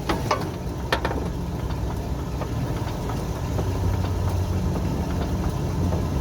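A five-function punch-and-shear machine (ironworker) running with a steady low hum. A few sharp metallic clicks come in the first second.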